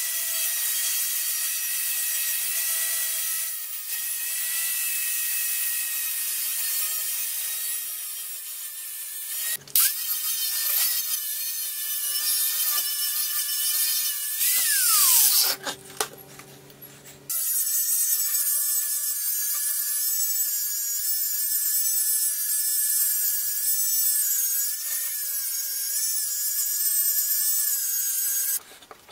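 Electric angle grinder running at full speed, its disc grinding the rust off an old steel axe head with a steady high whine. About 15 s in it winds down with a falling pitch, then starts again about two seconds later and runs until it cuts off near the end.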